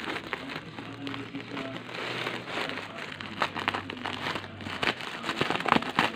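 Parcel packaging crinkling and rustling as it is handled and opened, with irregular crackles and a few sharper clicks toward the end.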